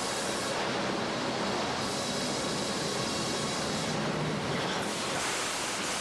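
Sawmill machinery and chain conveyors running: a steady mechanical din at an even level, with faint steady tones in it.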